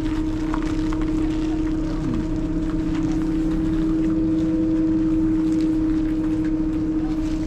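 Aerial cable car machinery running with a steady, constant-pitched hum over a low rumble.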